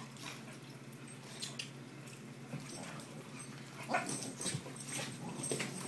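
A boxer and a young Alaskan Malamute play-fighting: irregular scuffles and brief dog noises, with a louder flurry about four seconds in.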